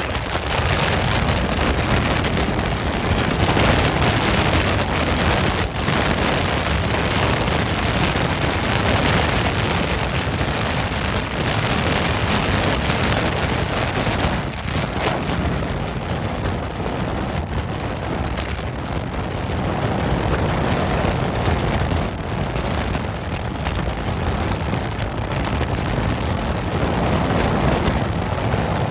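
Motorboats running at speed: a steady rush of wind and water spray with engine noise underneath, heard from aboard a boat running alongside a small outboard-powered race boat.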